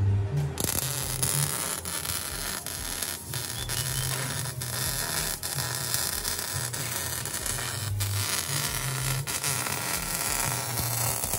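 Wire-feed (MIG) welder arc running a bead on a car's exhaust pipe: a steady noisy hiss that starts just after the beginning and carries on with a few brief drop-outs where the arc breaks.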